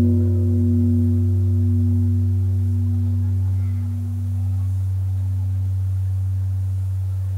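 Large Korean bronze temple bell ringing on after a single strike: a deep hum with higher tones above it, wavering in a slow pulse as it fades. The higher tones die away over the last few seconds.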